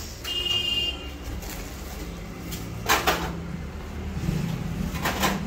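Two sharp knocks about two seconds apart, over a steady low rumble, with a short high chirp near the start.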